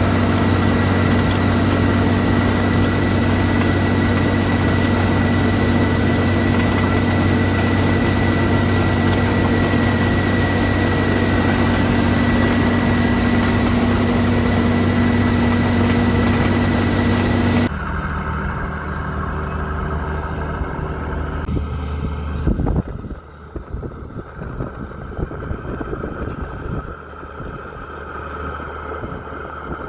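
Combine harvester engine and machinery running steadily, with a thin steady whine over the drone. About two-thirds of the way in the sound cuts off abruptly to quieter, more distant engine noise, which later thins to an uneven rumble.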